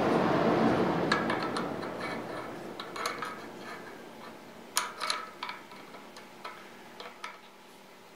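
Light metallic clicks and taps, about eight separate ticks spread out, as a scriber is handled and clamped onto a dial height gauge. A steady rushing noise fades away over the first few seconds.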